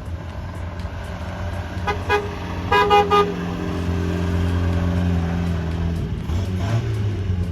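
1980 Triumph Spitfire's four-cylinder engine running steadily, with its horn tooted once about two seconds in and then three quick toots a second later.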